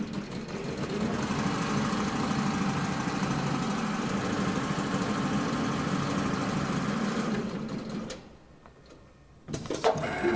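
CNC upholstery sewing machine stitching lines through leather layered with foam and non-woven fabric, running steadily. It stops about eight seconds in and starts again near the end.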